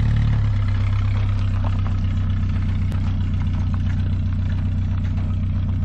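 1994 Ford Ranger's 2.3-litre four-cylinder engine running steadily with a low, even hum.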